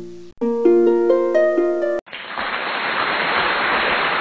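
Background music of plucked, harp-like notes that cuts off sharply about halfway through. A steady hiss like static follows.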